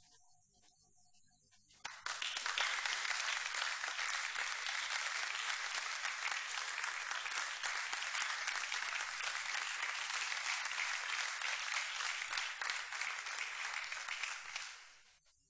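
Audience applauding. The applause breaks out about two seconds in, holds steady, and dies away near the end.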